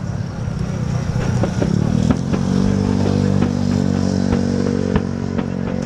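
A motor vehicle engine running close by, steady, loudest from about two seconds in until near the end, over scattered pops and crackles of fireworks.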